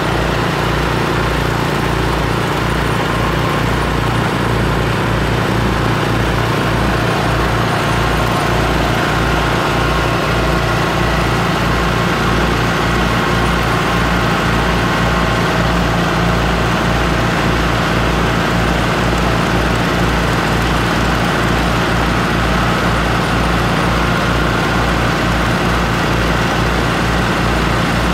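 A 6.5-horsepower single-cylinder gas engine running steadily, driving a shaker-screen soil sifter, with a Kubota tractor's engine running close by as its loader comes in.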